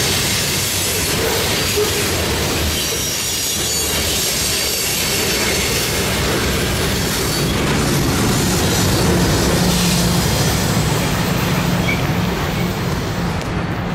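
Loaded covered-hopper grain train rolling past: steel wheels rumbling over the rails with some high wheel squeal. A steady low diesel engine hum grows toward the end as the train's rear pushing locomotive, a BNSF diesel, goes by.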